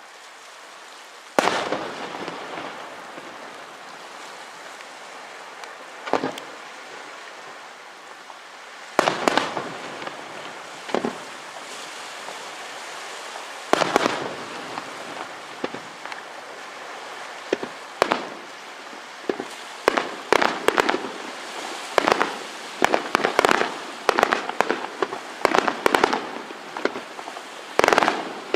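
Fireworks display: firework shells bursting with sharp bangs, each trailing off into crackling. The bangs are a few seconds apart at first, then from about two-thirds of the way in they come in quick salvos, several a second.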